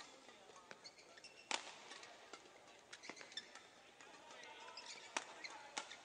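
Badminton rally: a few sharp racket hits on a shuttlecock, the loudest about one and a half seconds in, with court shoes squeaking on the floor in between.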